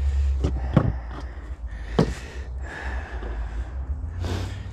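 A man breathing heavily and laboured, a sign of his lung trouble, with a few short knocks from handling during the work and a steady low hum underneath.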